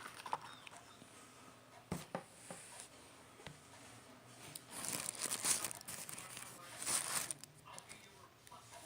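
Hands kneading and stretching a sticky slime made of play dough and lotion, with two spells of noisy handling about five and seven seconds in and a few sharp clicks.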